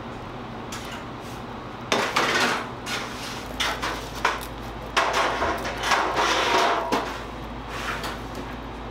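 Kitchen utensils and equipment clattering and scraping, in two spells about two and five seconds in, over a steady low machine hum.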